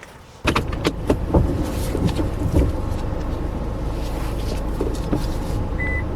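Car interior sound: a low engine and road rumble that comes on abruptly about half a second in and then runs steadily, with a few sharp knocks in the first second or so. Two short high beeps follow near the end.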